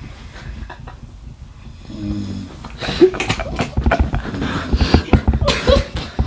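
A sleeping man snoring loudly. It is quieter for the first two seconds, then the snores turn harsh and rattling from about three seconds in.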